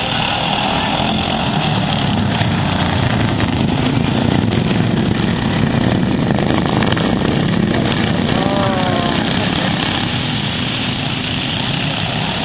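Racing lawn mower engines running loud and steady, swelling slightly in the middle.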